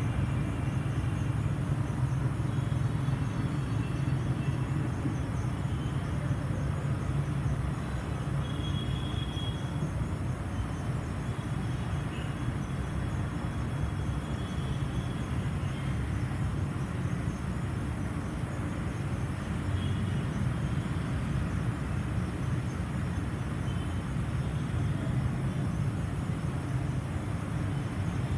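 LG air conditioner outdoor unit fan running steadily with a low, even whir.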